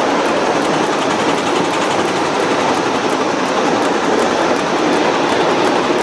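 Ride-on miniature live steam train running along its track, heard from a riding car: a steady rumble and clatter of the wheels on the rails as it crosses a wooden trestle.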